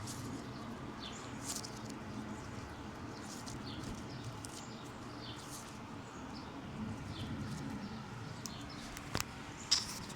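A slightly sticky foam squishy toy being squeezed and handled close to the microphone, giving soft scattered crackles and small squeaks. Two sharp clicks come near the end.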